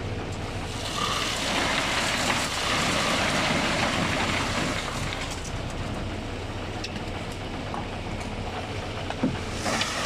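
Wet concrete tipped from a wheelbarrow slides down a wooden plank chute into retaining-wall formwork, a rushing hiss that is loudest for the first few seconds and then eases off. It rises again near the end as the next barrowload is tipped. A steady low hum runs underneath.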